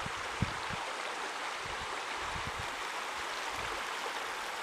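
Steady rushing of a shallow, clear trout stream flowing over a gravel bed, with a few soft low bumps.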